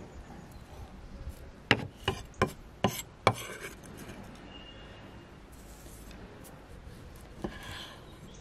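Chef's knife chopping green onions on a wooden cutting board: five sharp knocks of the blade on the board in quick succession about two seconds in, then one more knock near the end.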